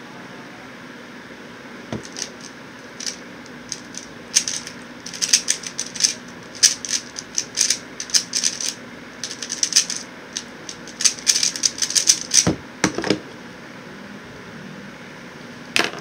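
A QiYi X-Man Tornado V1 3x3 speedcube being turned very fast in a speedsolve: rapid bursts of plastic clicking and clacking from its layers. The clicking starts about two seconds in and stops after about thirteen seconds, ending in a few dull knocks, and there is a single sharp tap near the end.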